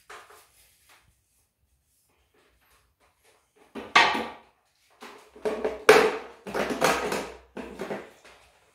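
Handling noise: a sharp knock about four seconds in as a knife is set down on a stool, then a few seconds of irregular clattering knocks and scrapes around the grinder.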